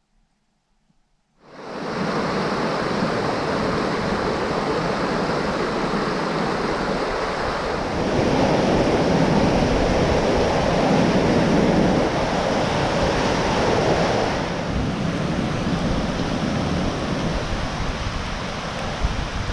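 Gale-force wind and rain: a loud, steady rushing that starts suddenly about a second and a half in, with the wind buffeting the camera microphone. It swells louder for several seconds in the middle, then eases a little.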